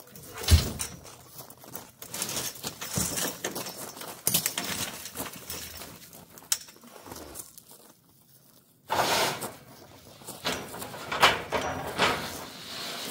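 Steel being shifted on a storage rack: a heavy metal knock about half a second in, then clanks and rattling. After a short pause, a rusty steel sheet scrapes and rattles as it is dragged out from behind long steel lengths.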